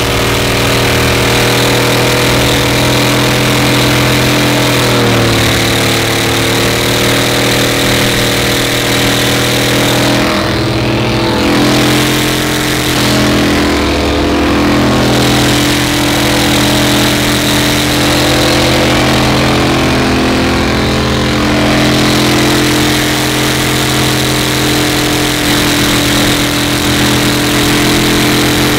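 A vehicle engine running steadily, its pitch dipping briefly a couple of times.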